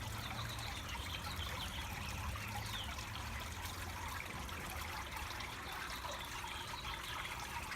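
Water trickling steadily over a green granite boulder fountain, with a low steady rumble underneath.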